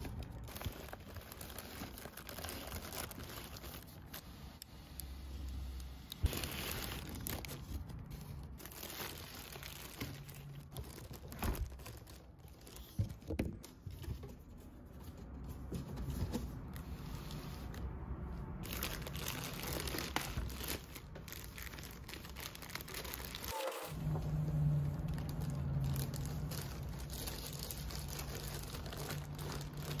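Unboxing handling noise: a cardboard box and clear plastic packaging being handled, with crinkling plastic, rustling cardboard and small knocks. A steady low hum joins in the last few seconds.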